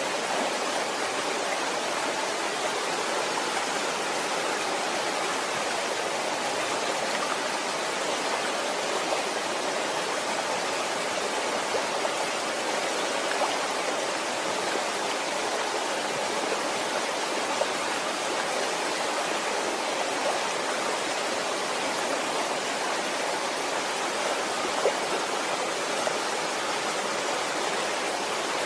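Waterfall: a steady rush of falling water with small splashes here and there.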